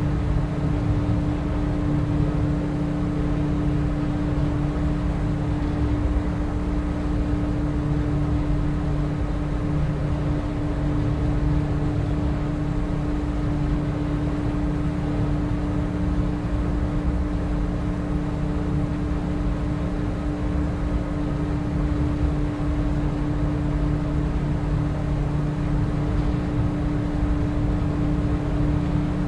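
A boat's outboard motor running at a steady speed, a constant engine tone over a low rumble.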